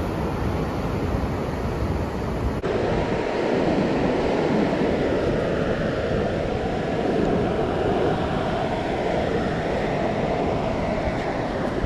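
Surf washing on the beach with wind buffeting the microphone, a steady rushing noise that changes character abruptly about two and a half seconds in.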